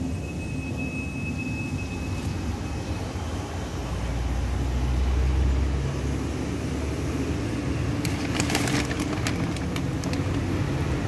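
Steady low machine rumble, with a faint high whine for the first two seconds or so and a quick run of sharp clicks about eight seconds in.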